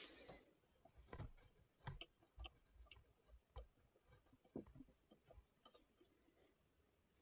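Faint, irregular knocks and clicks of a bark-covered log blank and the lathe's metal centres being handled as the blank is fitted between centres on a wood lathe. The lathe is not running.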